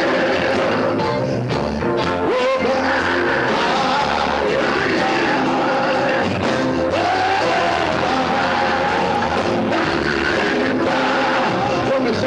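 Live gospel group performing: a lead singer singing into a microphone, with other voices and electric guitar accompaniment.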